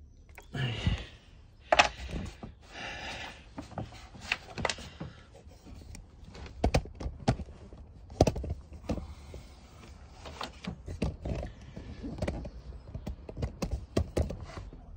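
Handling noise from the phone filming: a scattered run of knocks and clicks, with short stretches of rubbing, as it is picked up, moved and set down.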